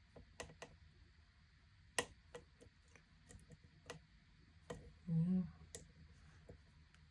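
Lock pick and tension wrench clicking in a pin-tumbler challenge lock with homemade pins as it is picked: scattered sharp clicks at irregular intervals, the loudest about two seconds in. A brief murmur from the picker about five seconds in; the lock is hung up, which he puts down to a probably overset pin.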